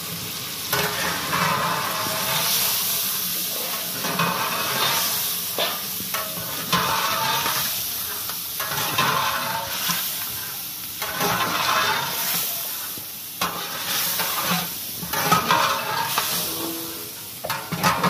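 Chicken korma sizzling in a large metal deg while a long-handled ladle stirs and scrapes through it in repeated strokes, about one every one to two seconds, with a few sharp knocks of the ladle against the pot.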